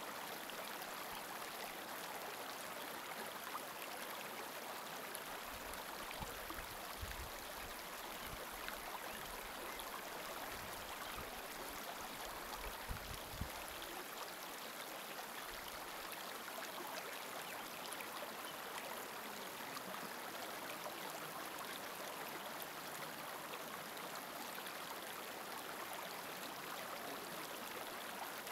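Steady rushing of flowing water, an even hiss with no rhythm, joined by a few low rumbles from about six to fourteen seconds in.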